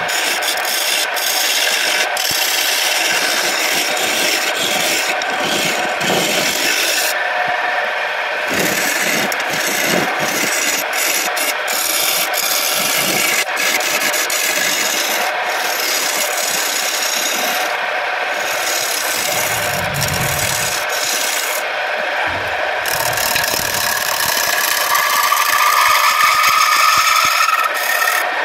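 Wood turning on a wood lathe, with a tool or abrasive working the spinning wood: a steady scraping hiss, with a faint rising whine near the end.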